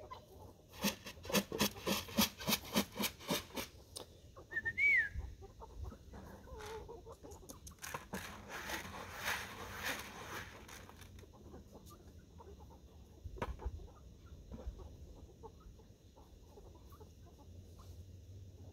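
Chickens clucking: a quick run of sharp clucks, about four a second, over the first few seconds, then a single higher call rising and falling about five seconds in. A stretch of rustling noise follows in the middle.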